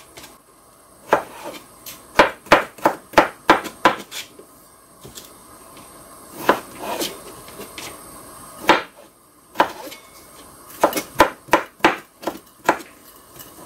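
Kitchen knife dicing raw potatoes on a cutting board: sharp, irregular knocks of the blade striking the board, in quick runs of several strokes with short pauses between.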